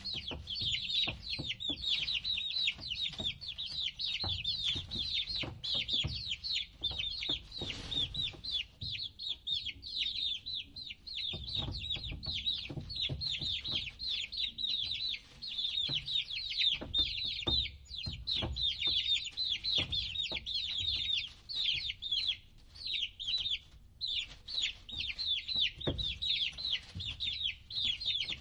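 A group of baby chicks peeping continuously, many high, short, downward-sliding chirps overlapping several times a second, with scattered light clicks and a low rumble underneath.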